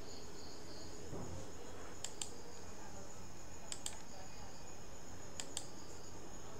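Computer mouse clicked three times, each a quick double click about a second and a half apart, over a steady high-pitched whine and low hum.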